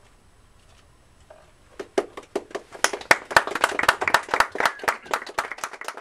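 Small audience applauding, individual claps distinct, starting about two seconds in.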